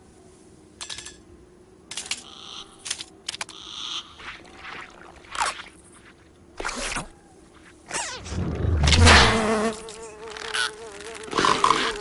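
Cartoon housefly buzzing, coming and going in short bursts, then a steady wavering buzz from about eight seconds in. A louder thump lands about nine seconds in.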